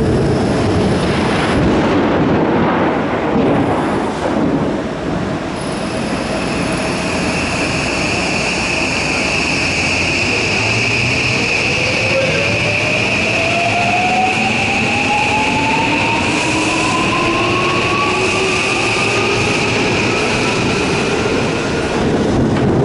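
JR West 323 series electric train pulling out and accelerating: a steady high whine and a motor whine that climbs steadily in pitch as it gathers speed, over the rumble of wheels on the track.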